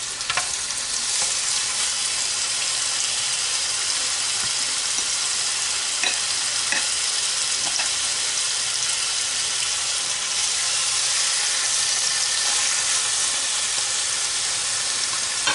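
Country-style pork ribs sizzling steadily as they sear in the hot pot of a Ninja slow cooker on its stovetop setting, with a couple of faint ticks. The sizzle is the sign that the pot is nice and hot, ready for searing.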